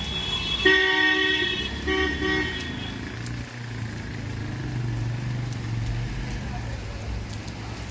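A vehicle horn honks once for about a second, then twice more in short blasts, over road traffic noise. A low engine hum follows.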